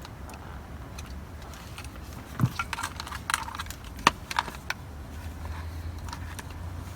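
Light clicks and taps of small parts being handled and fitted, in a cluster from about two to five seconds in, over a steady low hum.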